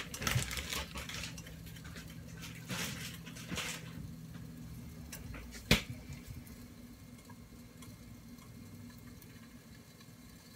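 Omelette cooking in a frying pan under a metal lid: faint, muffled sizzling with short bursts of spatter in the first few seconds, and one sharp click just under six seconds in, the loudest sound.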